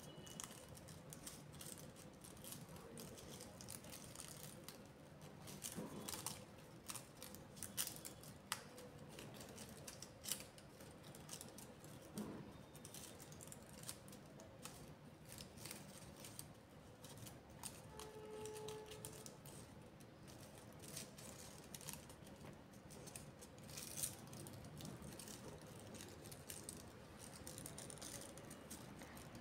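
Faint handling noises: scattered light clicks, taps and rattles of small objects being moved about, over quiet room tone.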